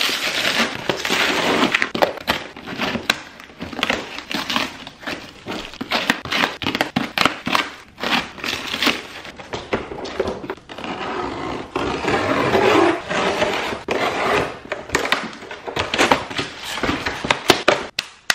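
Cardboard shipping boxes and plastic wrap being cut with a box cutter, torn and pulled open by hand, with continuous crackling, rustling and tearing and many small clicks. The sound stops abruptly at the end.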